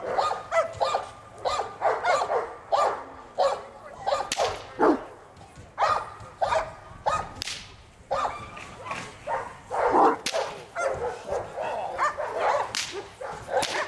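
Fila Brasileiro barking repeatedly at a protection-training helper, with a few sharp whip-like cracks in the second half.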